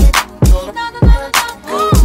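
Background music with a steady beat: deep kick-drum hits and sharp snare hits over sustained chords.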